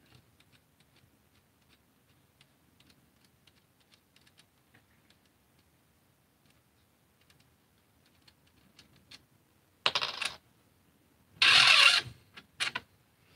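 Light ticks and clicks of a screwdriver turning screws in a Caliburn foam-dart blaster. Then, about ten seconds in, a few short bursts of hard parts clattering and scraping as the blaster is pulled apart, the longest and loudest near the end.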